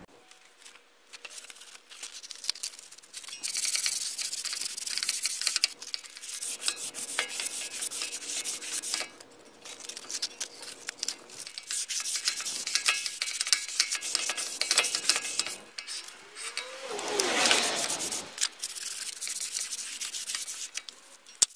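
A 2014 Toyota Fortuner's front brake rotor being hand-sanded with 120-grit sandpaper: light back-and-forth rubbing in runs with short pauses, a gentle scuff of the disc face to smooth minor grooves before new pads go on. A brief wavering tone comes in about three-quarters of the way through.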